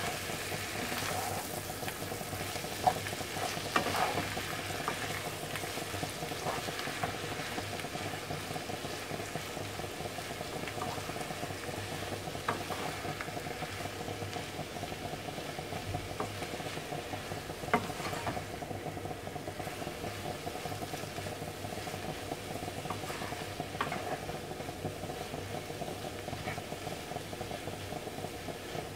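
Spinach and king prawns sizzling in a non-stick frying pan while a wooden spatula stirs them, with occasional short knocks of the spatula against the pan.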